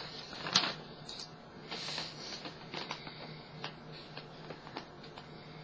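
Scattered light clicks and rustles of someone handling things close to the microphone, over a faint steady low hum.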